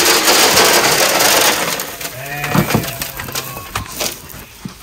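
Grain-based feed mix poured from a plastic tub into a metal trough: a loud, steady rush of grains that fades after about a second and a half into scattered light patters. A brief low tone sounds about halfway through.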